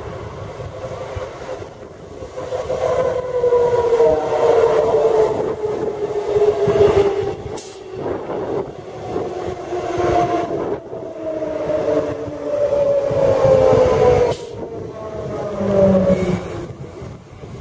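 Queensland Rail ICE electric multiple-unit train passing close by on the rails. A whining tone falls slowly in pitch twice as the two units go by, with two sharp clicks along the way.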